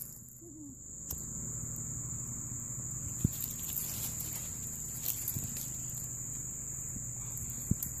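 Steady high-pitched insect chorus, with a couple of sharp clicks about three seconds in and near the end.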